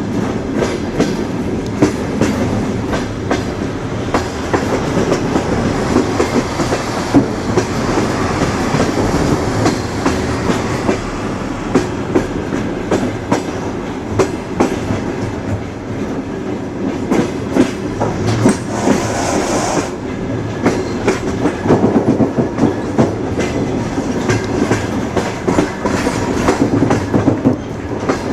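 Train rolling along the track, a steady rumble with the wheels clattering over the rails in irregular knocks. There is a short hiss about nineteen seconds in.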